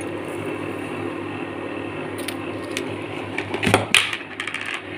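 A spoon clinking and knocking against a steel pot and kitchen containers while tea is made at an induction cooktop. There are a few light clicks about two seconds in, then a burst of louder clinks and knocks near the end, over a steady background hum.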